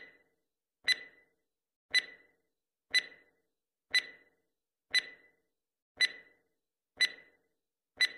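Countdown-timer sound effect: a sharp tick about once a second, nine in all, each with a short ringing tail.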